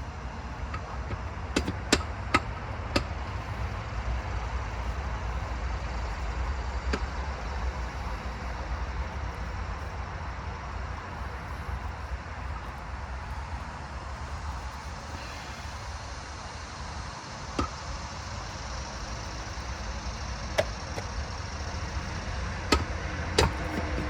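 Scattered sharp clicks and knocks, a few close together near the start and others spread out later, over a steady low rumble: parts and tools being handled during a CV axle job.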